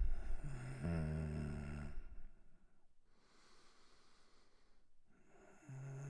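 A man's laboured, sick breathing. A long breath carried on a low voice tone lasts about two seconds, then comes a quieter, airy breath, and another low-pitched breath starts near the end.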